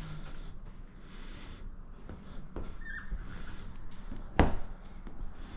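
Quiet handling sounds of a squeegee being worked along the wet edge of paint protection film on a car hood: faint rubbing and small clicks, a brief squeak about three seconds in, and one sharp knock a little past four seconds.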